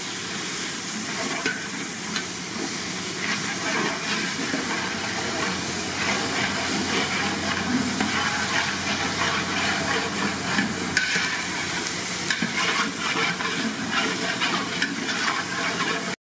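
Diced potatoes, carrots and beans sizzling in oil in a large metal pot, with a long metal ladle stirring and scraping them against the pot: vegetables being sautéed before the rice goes in.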